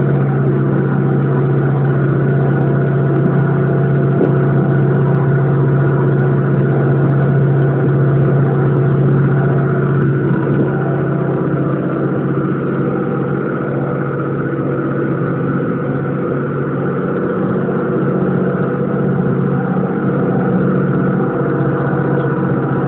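Small river ferry boat's engine running steadily while under way, a deep, even hum with overtones.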